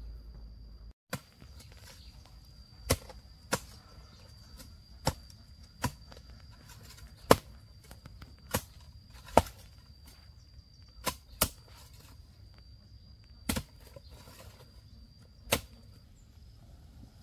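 About a dozen sharp, separate strikes at uneven intervals, over a steady high-pitched whine.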